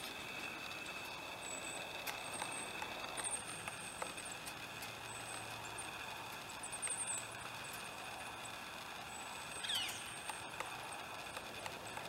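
Steady high whine of a camera lens's image stabilizer, with scattered knocks of a pileated woodpecker pecking at Douglas fir bark. Faint high chirps come and go, and a short falling whistle sounds near the end.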